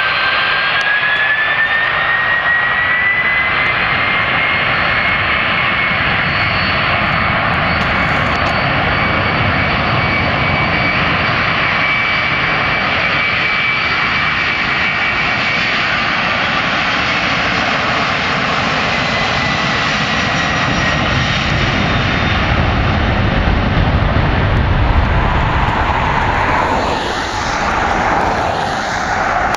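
Boeing 767-300ER's twin turbofan engines at takeoff power during the takeoff roll: a loud, steady jet roar with a high whine that rises in pitch over the first few seconds. The sound swells toward its loudest and shifts in pitch near the end as the aircraft passes.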